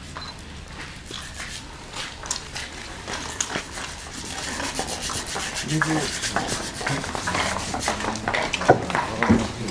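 Footsteps scraping and shuffling on the ground, with many small clicks, growing louder and busier in the second half as people move off.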